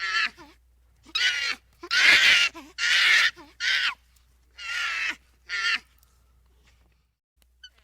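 An animal calling repeatedly: about seven short, high, harsh calls that each fall in pitch, separated by short gaps.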